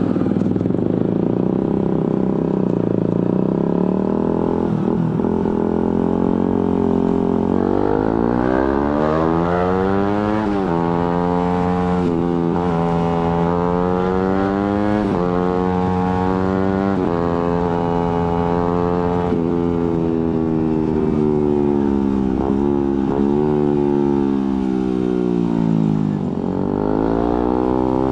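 Suzuki GSX-R150's single-cylinder four-stroke engine through an aftermarket Prospeed exhaust, accelerating hard through several clutchless quickshifter upshifts. Each rise in pitch is cut off by a sudden drop at the shift. The engine then falls away while slowing, with a few sharp cracks from the exhaust, and climbs again near the end.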